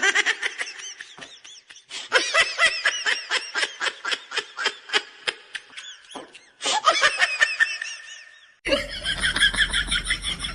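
Someone laughing hard in quick pulses of about four a second, in three runs with short breaths between. Near the end a different, steadier sound with a low hum takes over.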